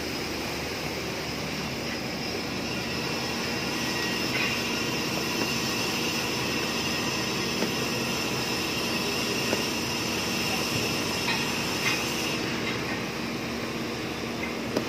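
Steady drone of running machinery with a high whine that cuts out about twelve seconds in, with a few light metallic clicks from a wrench turning a bolt on a duct flange joint.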